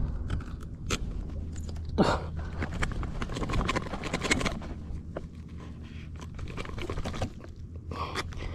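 Fishing pliers working a deep-set frog lure hook out of a bass's jaw: a run of crunching clicks and scrapes, busiest from about two to four and a half seconds in.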